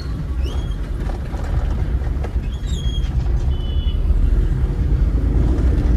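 Car driving in slow town traffic, heard from inside the cabin: a steady low rumble of engine and road noise. A few brief high-pitched beeps come through just after the start and again about three seconds in.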